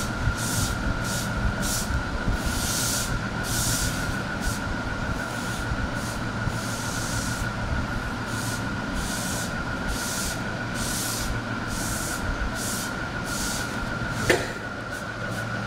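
A foam sponge wiping white adhesive paste across a slipper's coloured rubber sheet: soft swishing strokes about one and a half a second, over a steady high whine and low hum. A sharp click comes near the end.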